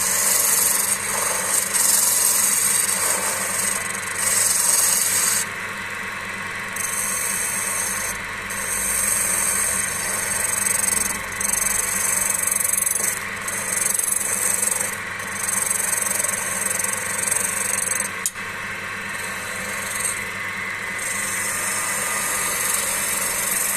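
Wood lathe running with a steady hum while a spanner is held against the spinning log as a turning tool, making a high scraping hiss in about nine passes of one to three seconds each as it takes off shavings. There is a single sharp click about three-quarters of the way through.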